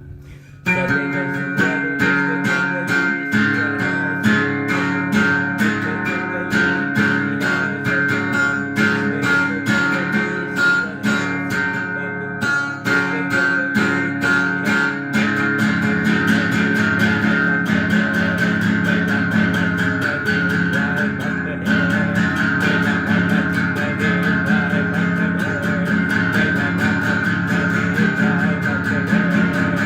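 Guitar music with quick, evenly spaced strumming, starting abruptly about half a second in.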